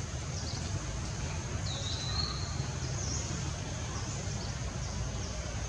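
Outdoor ambience: a steady high-pitched insect drone, with a short bird call about two seconds in, over a low rumble.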